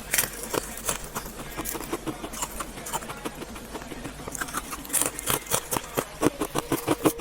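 Jelly giving off quick wet crackles and clicks, sparse at first, then crowding into a fast, louder run of clicks over the last two seconds.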